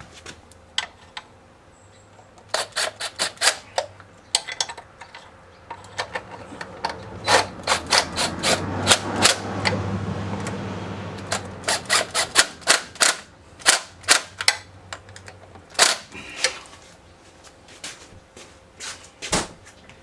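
Hand socket ratchet clicking in quick runs as bolts are driven and tightened, with scattered single metal clinks of tools and parts.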